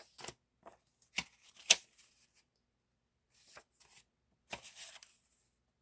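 Paper stickers and packaging being handled: a handful of short rustles and taps with quiet between them, the sharpest a little under two seconds in and a longer rustle near the end.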